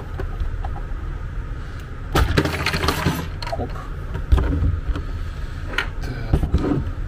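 Plastic appliance housing being prised apart by hand: a spell of crackling and creaking as the case halves come loose about two seconds in, then a few sharp knocks and clicks as the opened shell is handled.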